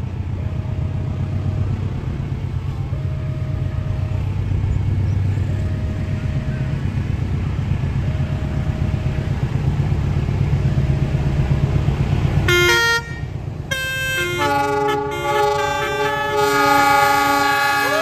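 CC 206 diesel locomotive's engine running as it hauls a long passenger train toward the listener, with a short tone repeating about every two seconds. About twelve and a half seconds in, loud horns cut in: short blasts, then several held notes changing in steps, as a basuri multi-tone car horn sounds off against the locomotive's horn.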